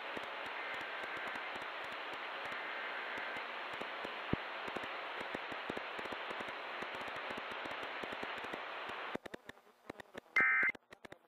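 Steady radio static hiss with crackling clicks, with faint bursts of data tones under it near the start. The static cuts off abruptly about nine seconds in, and a second later comes a short loud burst of Emergency Alert System header tones: the warbling two-tone digital data that opens an EAS test.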